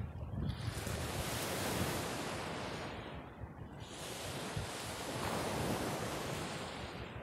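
Sea surf washing in, swelling and fading every few seconds, with wind rumbling on the microphone.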